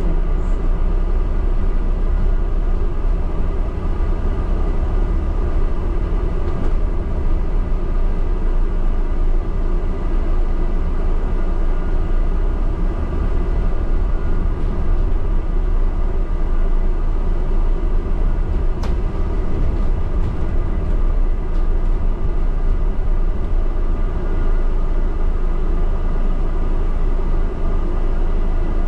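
Double-decker bus heard from inside its upper deck while driving: a steady low rumble with a faint steady whine above it, and a single click about two-thirds of the way through.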